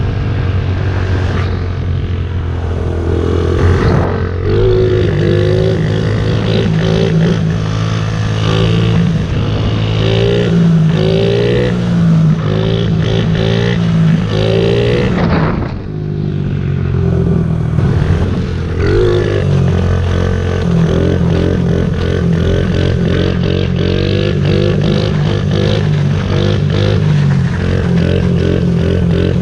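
Honda CRF50 pit bike's small four-stroke single-cylinder engine running under load while ridden, the revs rising and falling over and over, with a short drop in revs about halfway through.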